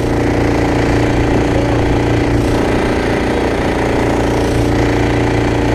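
Small outboard motor running steadily at cruising speed, pushing the wooden boat along.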